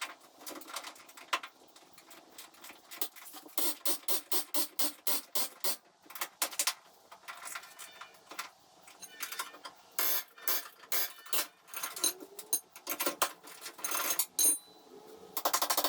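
A series of sharp knocks and taps. Around the middle they come as a run of evenly spaced strikes, about three a second; elsewhere they are irregular, with a denser cluster near the end.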